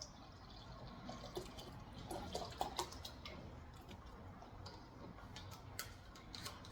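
Chicken stock being poured into a measuring cup: a faint trickle with scattered drips and small ticks.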